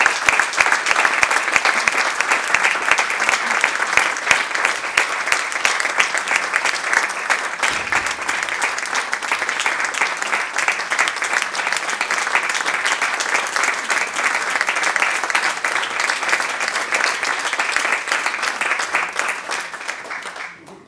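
Audience applauding: steady, dense clapping that dies away near the end.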